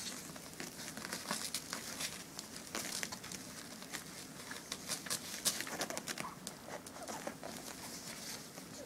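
Puppy training pads crinkling irregularly with many small clicks and crackles as nursing puppies and their mother shift on them.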